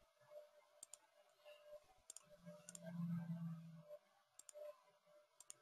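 Faint computer mouse clicks, several in quick pairs, with a brief low hum about halfway through; otherwise near silence.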